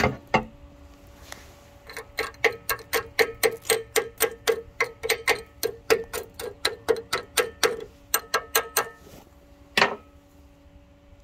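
Chipping hammer tapping slag off a fresh 7014 stick weld, about five quick strikes a second for some seven seconds, then one harder strike near the end.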